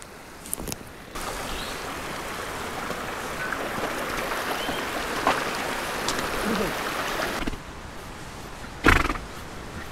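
Shallow mountain stream rushing over cobbles, beginning about a second in and cutting off abruptly a couple of seconds before the end. A few sharp clicks near the start and one loud thump near the end.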